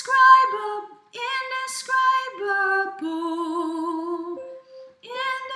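A woman singing the soprano harmony part of a choral arrangement, pitched a third above the melody, as a slow line of a few held notes with short breaks between them.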